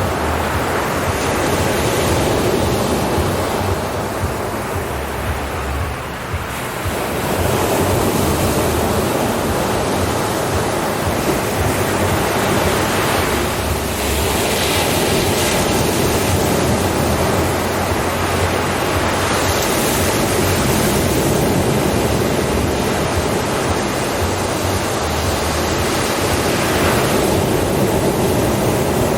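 Ocean surf: waves breaking and washing in a continuous rush, swelling and easing every several seconds, with a short lull about six seconds in.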